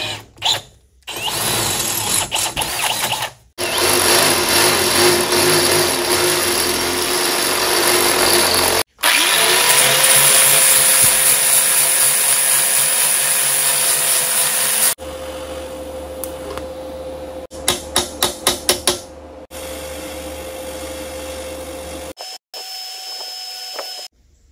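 Power drill running against a steel exhaust Y-pipe, the work for fitting an O2 sensor bung, heard in several short back-to-back clips. In one clip the motor's tone rises and then holds steady. Past the middle there is a quick run of sharp ticks.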